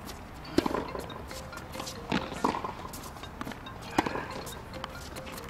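Tennis rally on a hard court: sharp pops of the ball struck by rackets, one about half a second in, a close pair around two seconds in and another about four seconds in, with lighter ball bounces and footsteps between.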